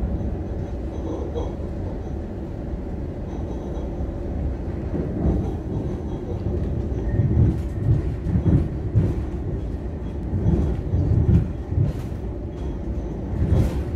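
ÖBB Railjet passenger train running at speed, a steady rumble of the moving carriage heard from inside. Louder irregular low bumps come and go through the middle.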